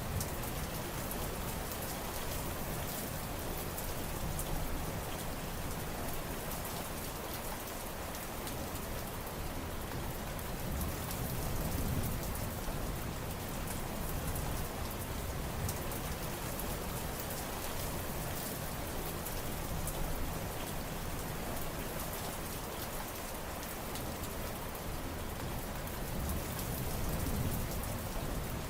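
Steady rain falling: an even hiss with fine drop patter, under a low rumble that swells and fades a few times.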